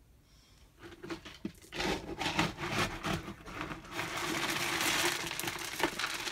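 Bag of dog food crinkling and rustling as it is handled and opened, starting about two seconds in and growing busier toward the end.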